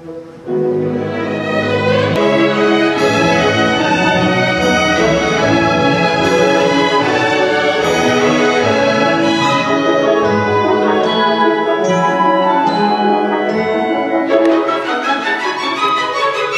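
Symphony orchestra playing classical music, strings and brass together. It comes in loudly about half a second in after a quiet moment, then plays on at a full, steady level.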